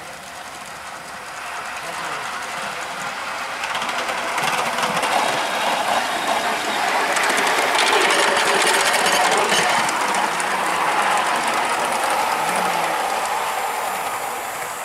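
Live-steam miniature New Haven Class I-1 Pacific steam locomotive running by, a steady hiss of steam exhaust and wheels clicking on the rails. It grows louder as it draws close about halfway through, then fades as it moves away.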